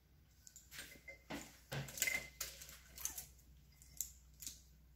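Ring of plastic measuring spoons clicking and clattering as it is handled together with a metal spoon: a string of light, irregular clicks.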